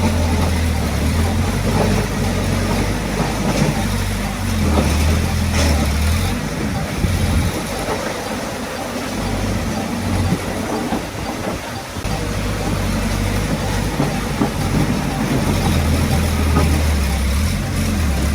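Diesel engine of heavy earthmoving equipment running with a low, steady drone; the engine note eases off for a few seconds midway, then comes back up.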